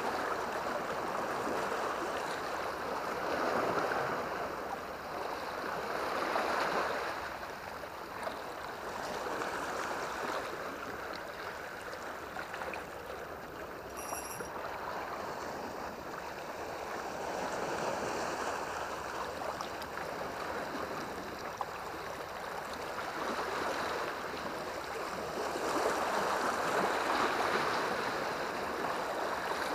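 Sea water washing and lapping against the shore just below, a steady rush that swells and eases every few seconds, with a brief high chirp about halfway through.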